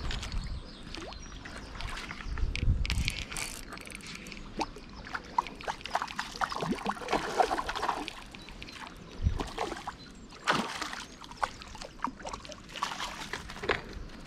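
Water splashing and sloshing in irregular bursts as a hooked trout thrashes at the surface near the bank and is scooped out with a landing net.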